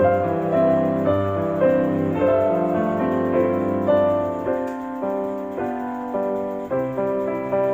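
Slow piano music, single notes and chords struck about once or twice a second and left to fade.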